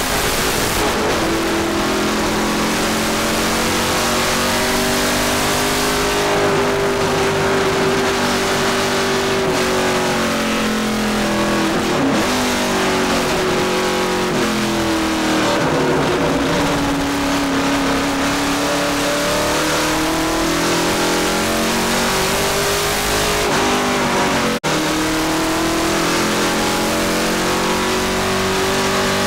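Ford Boss 302 V8 of the 1970 Bud Moore Trans Am Mustang, heard from inside the cabin on track. It runs at high revs, the engine note dipping and climbing back twice, with a split-second dropout in the sound about three-quarters through.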